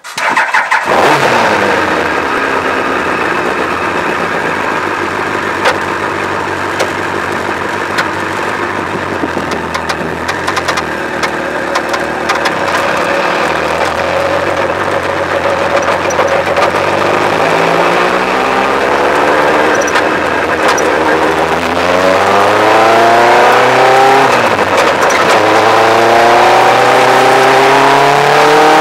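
Yamaha R1 inline-four motorcycle engine in a lightweight open kit car, heard from the cockpit. It runs steadily at idle just after start-up, then the car pulls away from about 18 s in, the revs rising and dropping back several times as it changes up through the gears.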